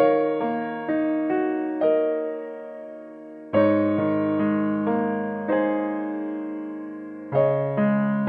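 Background piano music: a slow piece with chords struck about every four seconds and single melody notes in between, each note fading away.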